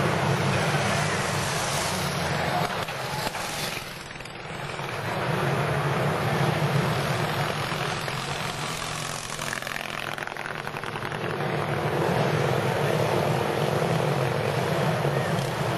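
Engines of pre-1910 board-track racing motorcycles running as the bikes circle a dirt track. The sound dips about four seconds in and again around ten seconds, then swells as riders come back past.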